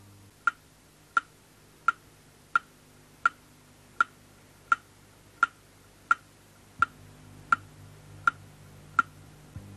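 Clock ticking: steady, evenly spaced sharp ticks, about one every 0.7 seconds, over a faint low hum.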